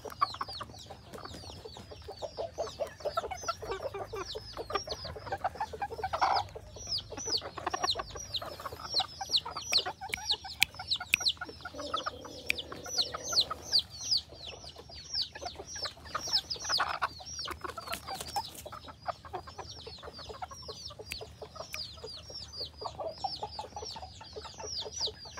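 Chickens clucking in a pen, over a steady run of high, falling chirps repeating several times a second, with a short held call about halfway through.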